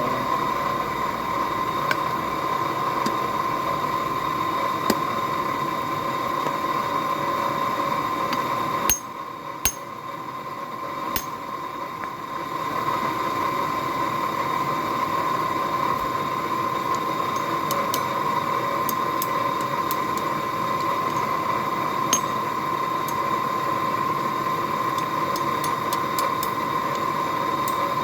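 Forge blower running steadily with an even whine over a rushing noise, dropping lower for a few seconds about nine seconds in before picking up again, while the steel heats in the fire. A few faint metallic clicks sound now and then.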